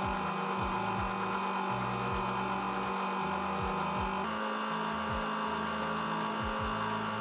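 Small metal lathe running with a steady motor hum while a carbide insert tool turns a metal workpiece. The sound changes abruptly about four seconds in.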